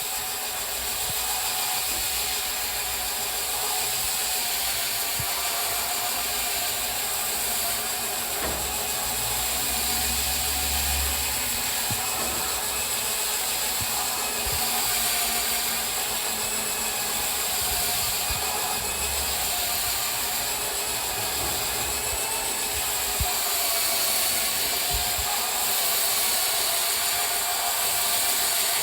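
Cordless electric bathroom scrubber running steadily, its motor spinning the brush, with a few short knocks.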